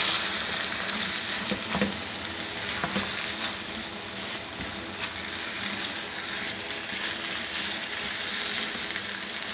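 Yogurt and fried lentils sizzling in a hot non-stick frying pan while being stirred with a spatula, with a few clicks of the spatula against the pan about two and three seconds in.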